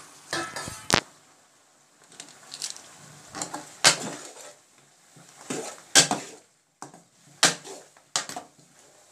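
Steel ladle scraping and clanking against a steel cooking pot as chicken pieces and spices are stirred, with five sharp metal knocks among the scrapes.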